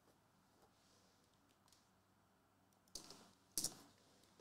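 Near silence, then two short, sharp clicks about half a second apart near the end.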